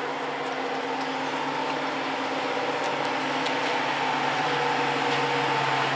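An engine running out of sight: a steady low drone with several held tones, slowly getting a little louder.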